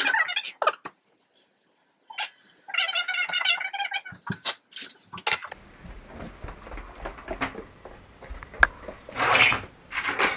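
A cat meows, a high wavering call about three seconds in, among kitchen handling noises: clicks and knocks of dishes being set down and carried, and a toaster oven door being opened near the end.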